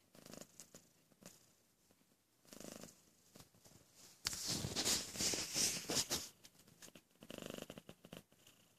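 Domestic cat purring in short spells, three in all. About four seconds in, a loud rustling lasts nearly two seconds.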